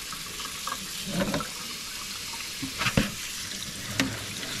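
Kitchen tap running in a steady stream onto berries in a plastic colander in a stainless-steel sink. A few sharp knocks, the loudest about three seconds in, come as the colander is handled.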